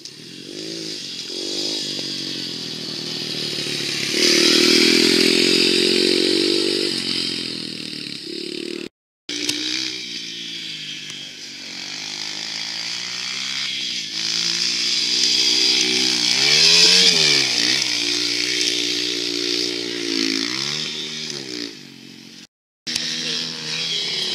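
Dirt bike engines revving up and down while riding, the pitch climbing and falling again and again with the throttle. The sound cuts out abruptly twice for a split second.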